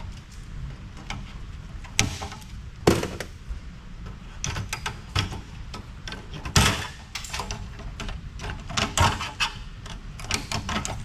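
Irregular knocks, clicks and clatter of metal parts and tools being handled as a stereo power amplifier is taken apart, with sharper knocks about two and three seconds in and a cluster around six and a half seconds, over a steady low hum.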